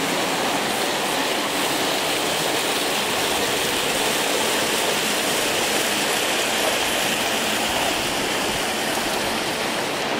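Water rushing over a small concrete weir and tumbling down a rocky cascade into a stream: a steady, loud rushing noise.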